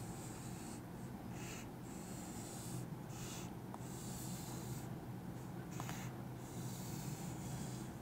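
Chalk scratching on a chalkboard in a series of short strokes as a wavy outline is drawn, over a faint steady low hum.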